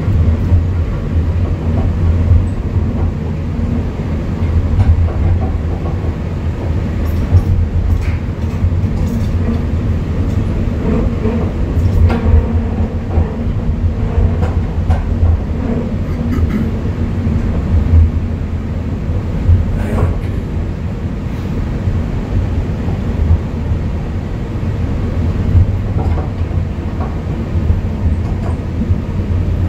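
UP Express diesel multiple-unit train heard from inside the passenger car: a steady low rumble of the train running along the track, with occasional sharp clicks.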